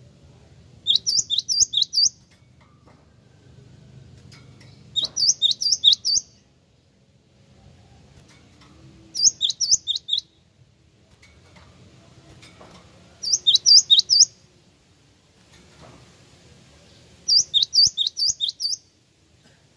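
Cinereous tit (gelatik wingko) singing: five loud phrases, each a quick run of five or six sharp, high notes lasting about a second, repeated roughly every four seconds.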